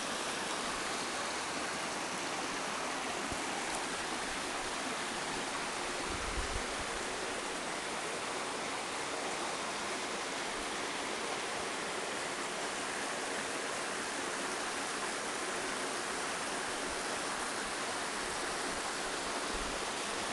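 Creek water rushing steadily over rocks, a constant even hiss.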